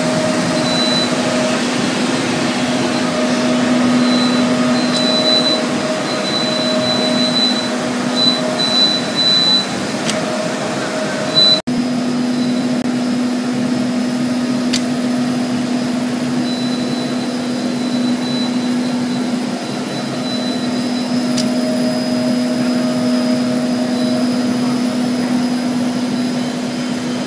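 Automatic UV roller-coating line running: a steady machine hum of conveyor drives, roller coater and cooling fans, with a few constant tones. The sound breaks off for an instant about twelve seconds in, then carries on as before.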